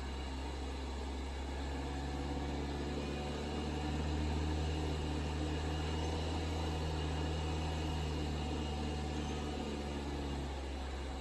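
A 2018 Honda Civic Type R's turbocharged 2.0-litre four-cylinder engine running steadily in the engine bay, with a low drone that comes in shortly after the start, swells about four seconds in and fades near the end. This is the unexplained noise the owner is recording.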